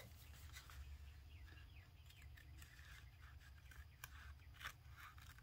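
Faint snips of scissors cutting through cloth athletic tape, over near silence.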